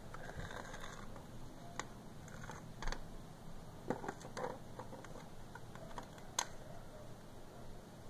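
Faint, scattered small clicks and knocks at irregular intervals over low background hiss.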